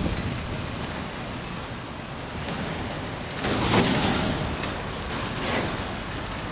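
Wind rushing over a phone's microphone, mixed with the hiss of bicycle tyres on wet asphalt during a ride, swelling louder about three and a half seconds in.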